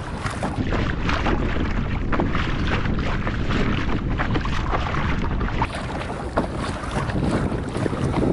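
Wind buffeting the microphone on a kayak on open water, with small waves lapping and slapping against the hull in short irregular splashes.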